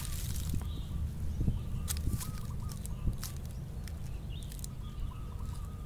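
Dry leaves crackling in a few sharp snaps as a toy cow is pushed about on them, over a steady low rumble, with faint short bird calls repeating in the background.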